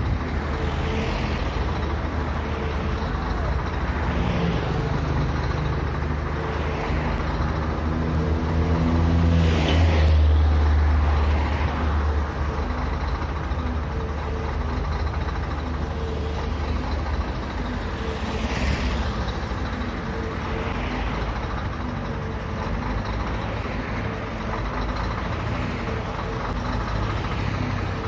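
A heavy diesel engine idling steadily under road traffic. A large vehicle passes close by about ten seconds in, the loudest moment, and another vehicle passes near nineteen seconds.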